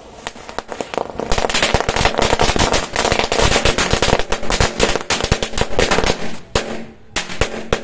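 A pit full of bidi bomb firecrackers going off together: a dense, rapid crackle of overlapping sharp bangs from about a second in, thinning to scattered single bangs near the end.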